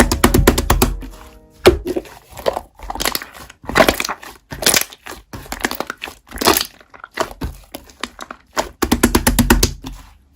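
Slime being squeezed and pressed by hand, giving repeated bursts of crackling, popping clicks about once a second, with some bursts longer and denser than others.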